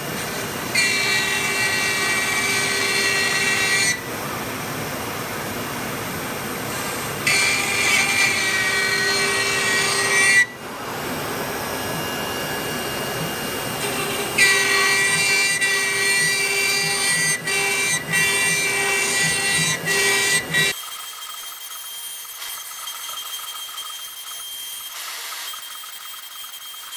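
CAMaster 508 ATC CNC router spindle running and its bit routing plywood under a brush dust shoe. There are three cutting passes with a high-pitched whine and rasp over steady machine and dust-extraction noise. About 21 seconds in, the sound drops abruptly to a quieter, thinner steady hum with a high tone.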